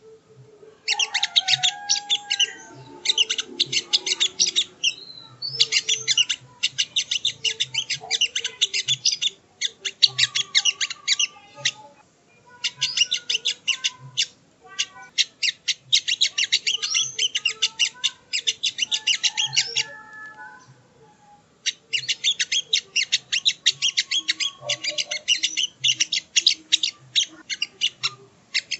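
Spiderhunter (sogok ontong) song used as a lure recording: rapid strings of sharp, high chattering notes in bouts of a few seconds, broken by short pauses.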